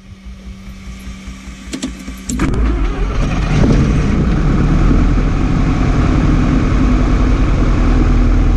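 A single-engine light aircraft's piston engine being started: the starter cranks it for about two seconds, then the engine catches with a sudden jump in loudness. It surges up briefly, then settles into a steady idle.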